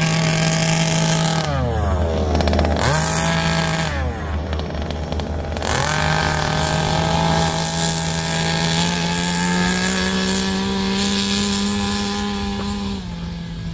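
Small two-stroke engine of a gas RC Baja buggy, revving high, dropping to idle about a second and a half in, blipping briefly around three seconds, then from about six seconds held at high revs with the pitch slowly climbing, easing off near the end.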